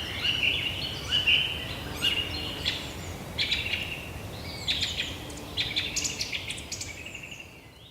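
Forest birds chirping and trilling in quick, repeated short calls over a steady low background noise, the whole recording fading out near the end.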